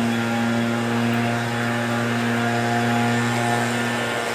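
An engine droning steadily, holding one low pitch throughout.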